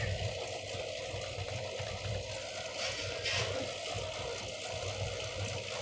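Coil cleaner being sprayed onto dirty refrigeration condenser coils: a steady watery hiss with brief stronger spurts at the start and about three seconds in, over a low hum.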